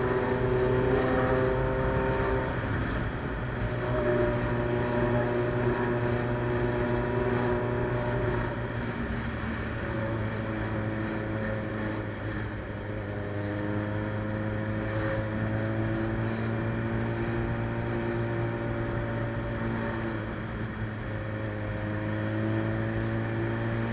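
Suzuki Bandit 600's carbureted inline-four running through a straight-pipe sports exhaust while riding, its pitch falling and rising several times as the throttle is opened and eased.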